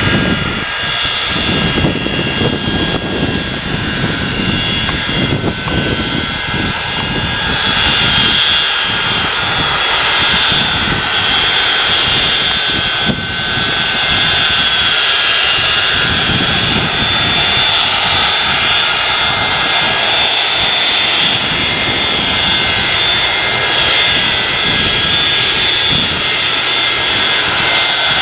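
Boeing 737-200's Pratt & Whitney JT8D turbofan engines running at taxi power as the jet taxis, a steady high whine over a constant rush of engine noise.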